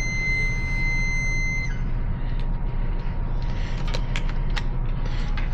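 Steady high electronic beep from a digital multimeter, cutting off suddenly about a second and a half in, which shows the probes had contact on the wire. Scattered light clicks and handling noises follow, over a steady low hum.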